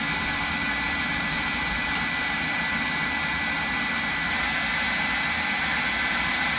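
Steady rushing air noise with a faint high whine, unchanging throughout.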